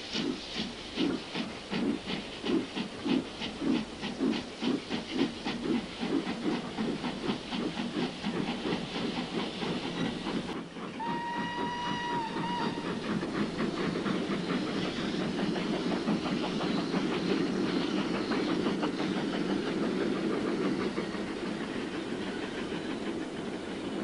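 Steam locomotive chuffing in an even rhythm of about two and a half beats a second. About eleven seconds in, a steam whistle blows one held note for about two seconds. After that the train runs on with a steady rushing noise.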